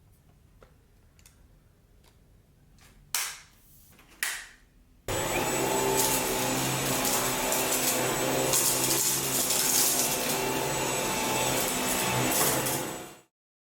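Dyson V11 cordless vacuum switched on and running steadily for about eight seconds, a constant whine with no pulsing, then stopping. Before it starts there are a few light clicks and two short loud bursts.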